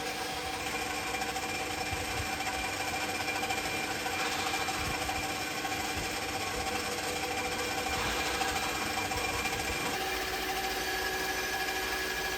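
CNC lathe running as it machines an alloy wheel, a steady mechanical hum with several held whining tones. The tones change abruptly about half a second in and again near ten seconds in.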